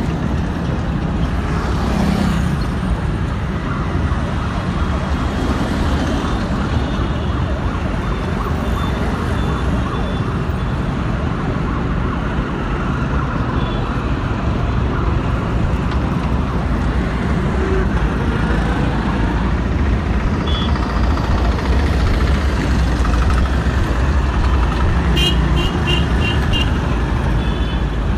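Steady street traffic noise with a low rumble of vehicles, and a quick run of short high beeps near the end.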